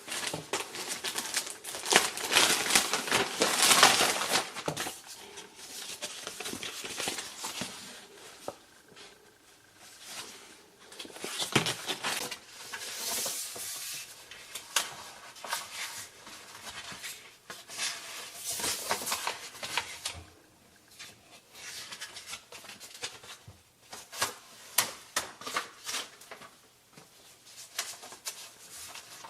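Handling noises: rustling and crinkling with scattered clicks and knocks, loudest in the first few seconds.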